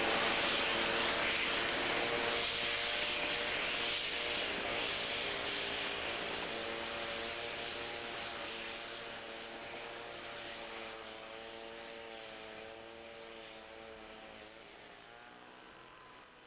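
NSW 59 class Baldwin 2-8-2 steam locomotive working away with its train: a steady, noisy rumble of exhaust and train that fades steadily into the distance, with a wavering held tone coming through in the middle and latter part.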